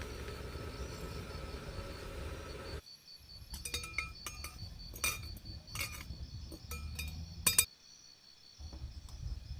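A series of sharp clinks from camping cookware or utensils being handled, about six in a few seconds, the last the loudest. Before them a steady low background stops suddenly.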